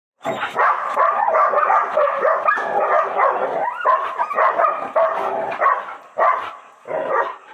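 Belgian Malinois dogs whining and barking almost without a break, easing into shorter bursts near the end.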